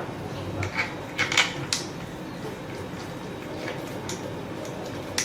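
A quick run of light clicks and taps about a second in, then a few fainter ones, as small hard 3D-printed parts are handled and fitted together, over a faint steady hum.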